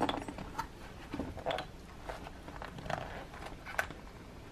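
Gloved hands handling a croc-embossed leather Filofax planner and its bare metal ring-mechanism plate: scattered soft rustles and light clicks.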